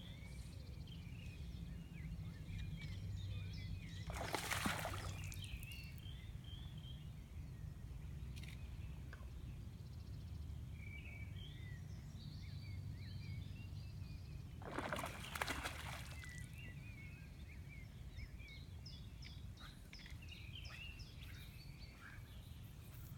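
Lakeside outdoor ambience: a steady low rumble of wind on the microphone, with small birds chirping throughout. Two brief rushing sounds come about four and a half and fifteen seconds in.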